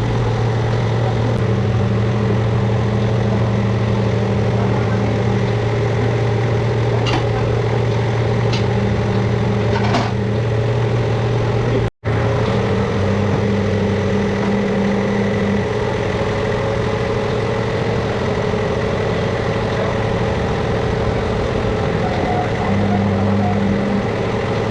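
Steady mechanical drone of a running motor or engine, with a second, higher hum that cuts in and out several times and a few light clicks; the sound breaks off for an instant about halfway through.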